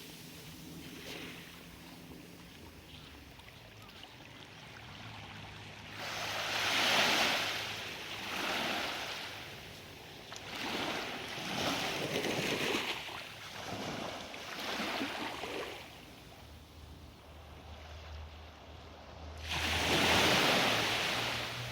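Sea surf washing onto the shore in repeated surges, swelling and fading several times, loudest about seven seconds in and again near the end.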